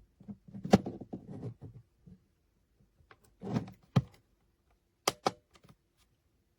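Handling noise: knocks and clicks of a small object being moved and set down. They come in three short clusters, ending with two sharp clicks in quick succession.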